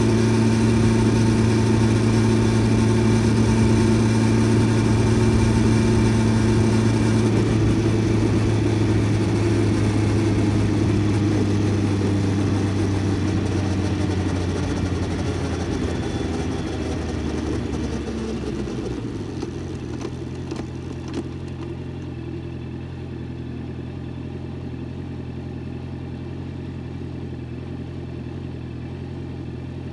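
Honda CBR650F's inline-four engine running steadily, then easing off: the sound drops in pitch and level over about ten seconds and settles to a steady, quieter idle for the last third.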